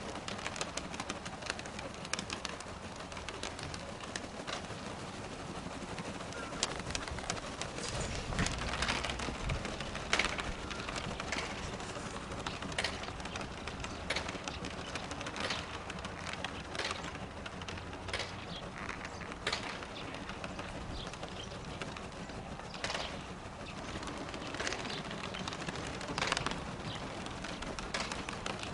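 Domestic pigeons cooing, with short sharp sounds every second or two.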